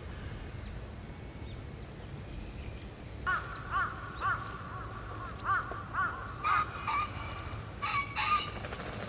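A crow cawing: a string of short harsh caws in quick groups, starting about three seconds in, over a low steady rumble.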